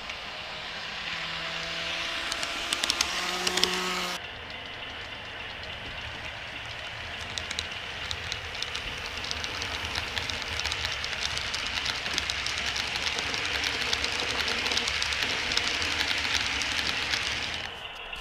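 HO scale model freight cars rolling close past, their metal wheels clicking rapidly over the rail joints above a steady rumble. Before that, in the first four seconds, there are a few brief pitched tones.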